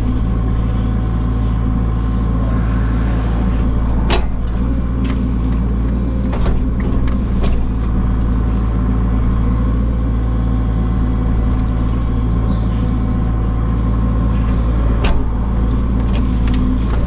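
A work machine's engine running steadily at one speed, with a few sharp knocks over it.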